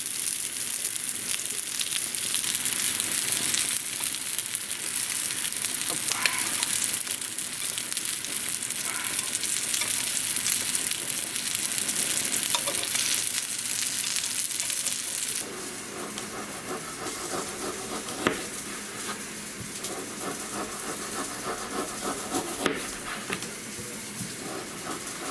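Semolina-breaded ruffe fillets sizzling steadily as they fry in vegetable oil in a pan, with a few light clicks of tongs turning the pieces. About fifteen seconds in the sizzle cuts off, giving way to a quieter stretch with two sharp knocks of a knife cutting salo on a wooden board.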